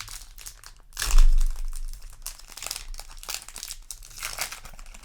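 Foil trading-card booster pack crinkling and tearing as it is opened, with a louder rip about a second in.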